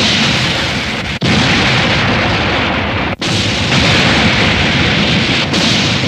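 Anime explosion sound effects: loud, dense blasts played back to back, with an abrupt cut to the next effect about one second in and again about three seconds in.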